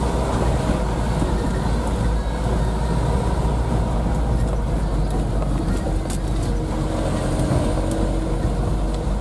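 Isuzu Elf minibus's diesel engine running at low speed, heard inside the cab, with a steady deep rumble from the engine and the tyres on a rough stone-and-dirt road, and a few sharp rattles.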